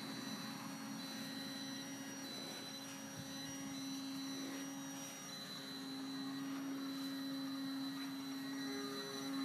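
Control-line stunt model aircraft's motor running steadily with a droning hum that swells and fades slowly as the model circles the flyer.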